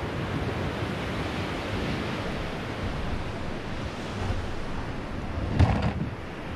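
Surf breaking on the beach with wind on the microphone, a steady wash of noise; a brief louder sound stands out near the end.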